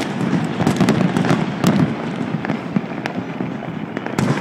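Many fireworks displays going off at once: a continuous rumble of overlapping booms, with sharp cracks scattered throughout.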